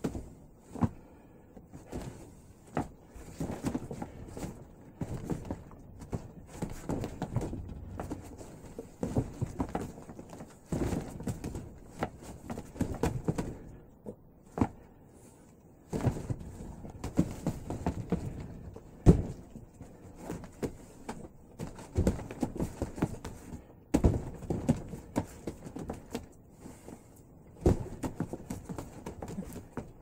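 Hands and forearms striking and sliding against the arms of a homemade, duct-tape-wrapped Wing Chun dummy. Irregular thunks and knocks come with rubbing between them, and there is a short pause about halfway through.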